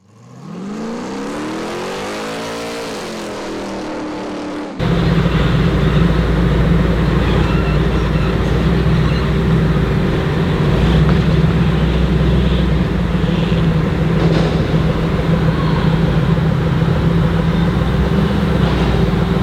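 A short engine rev that rises and then falls in pitch, then, about five seconds in, the supercharged Ford SVT Cobra V8 of a 1956 Ford F100 panel truck running steadily as the truck drives slowly along.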